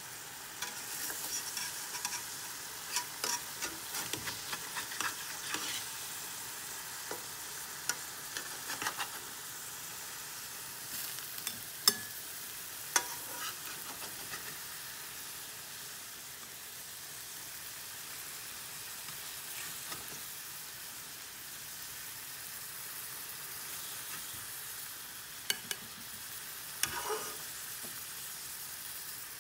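A vegetable and egg fry-up sizzling steadily in butter in a frying pan. A metal slotted spatula scrapes and clicks against the pan now and then, with the sharpest clicks about 12 and 13 seconds in and a few more near the end.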